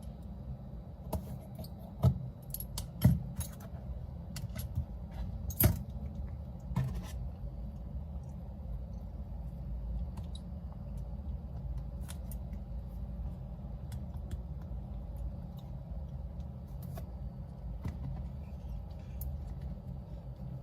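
Small metal clicks and taps of repair tools and phone parts being handled on a bench, several in quick succession, the loudest about two, three and six seconds in, then only faint scattered ticks. A steady low hum runs underneath.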